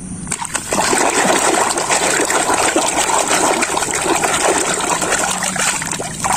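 Water sloshing and splashing in a tub as a hand swishes a plastic toy through it, washing it, with a continuous churning of small splashes.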